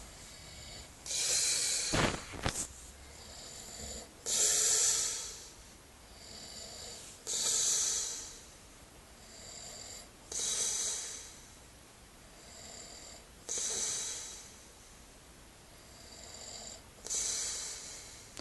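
A man snoring in his sleep: six loud snores, about one every three seconds, with softer breathing sounds between them.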